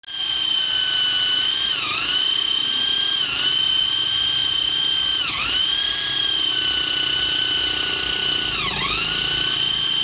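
Corded electric drill boring into a motorcycle's rear wheel hub: a steady high motor whine that sags in pitch four times as the bit bites and the motor slows under load, then picks back up.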